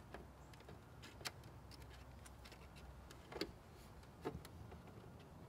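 Near silence with a few faint, sharp clicks from handling a plastic LED brake-light housing and its wiring connector, the loudest about three and a half seconds in.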